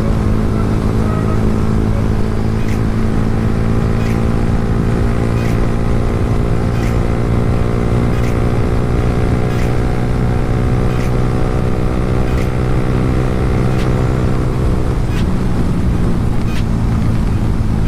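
Yamaha R15 V3's single-cylinder engine running at a steady speed while being ridden, its note easing off about fifteen seconds in. Faint ticks recur about every second and a half.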